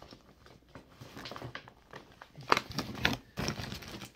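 Paper sheets rustling and crinkling as they are handled and shuffled, with two louder, sharper rustles about two and a half and three seconds in.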